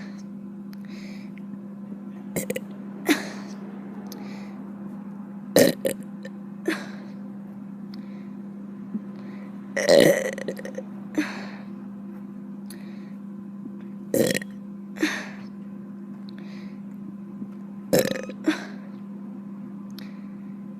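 A woman burping over and over: about ten short burps a few seconds apart, often two close together, the loudest and longest about halfway through. A steady low hum runs underneath.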